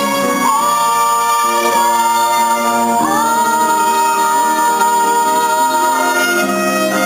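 A stage musical number: singing over instrumental accompaniment, with two long held notes that each slide up into pitch, one about half a second in and one about three seconds in.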